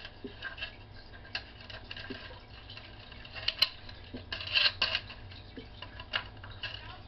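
Scattered light clicks and rattles of small wires and connectors being handled under a model starship, as its light circuits are hooked up; the loudest cluster of clicks comes a little after halfway through.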